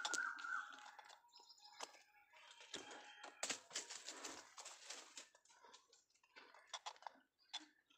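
Leaves and stems of dense bankside undergrowth rustling and brushing as someone pushes through it, with scattered small clicks and snaps, thickest about halfway through.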